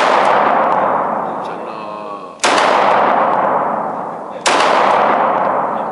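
9mm Glock 19 pistol firing single shots in an indoor range, each shot sharp and followed by a long echoing decay off the range walls. Two shots about two seconds apart, with the echo of a shot fired just before still ringing at the start.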